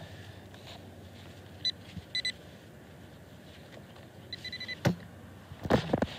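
Handheld metal-detecting pinpointer (Whites Bullseye TRX) beeping at a target in the dug hole: one short beep, then two quick beeps, then a fast string of beeps just before five seconds in, signalling metal close to the probe tip. Sharp knocks of handling follow near the end, louder than the beeps.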